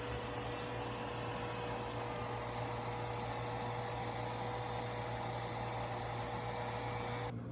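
Conair 1875 handheld hair dryer running steadily, an even rushing blow with a low hum and a thin steady whine under it. It cuts off suddenly near the end.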